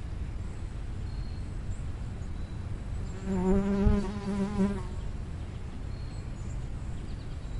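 A flying insect's wings buzzing, passing close for about a second and a half in the middle with a slightly wavering pitch, over a steady low rumble.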